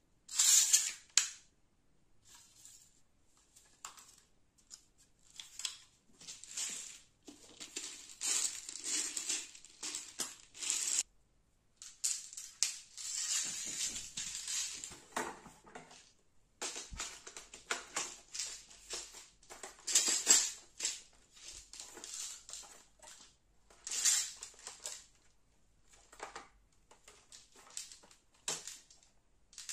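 Irregular plastic clicks, scrapes and rattles from a cheap toy MP40 BB gun's plastic magazine, handled and loaded with BBs, then fitted into the gun.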